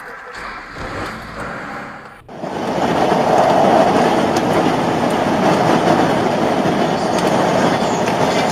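Steady road and engine noise of a vehicle driving at highway speed, heard inside the cab; it comes in abruptly and loudly a little over two seconds in, after quieter driving sound.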